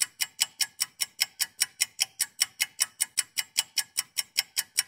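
Clock-ticking sound effect: fast, even ticks, about six a second, with no other background sound under them.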